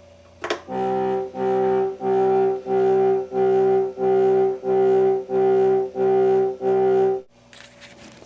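Mountain Computer synthesizer card in an Apple II+ playing one reedy, clarinet-like note over and over, about ten times in an even beat of roughly one and a half notes a second, then stopping. A single click comes just before the first note.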